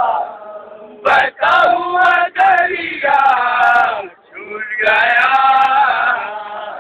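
Men loudly chanting a nauha, a Shia Muharram lament, in long drawn-out sung phrases. The chant breaks off briefly about four seconds in.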